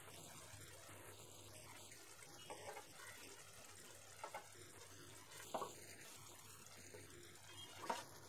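Faint simmering of gravy in a pan, with a few soft clicks of a metal spoon against the pan as the stuffed peppers are turned.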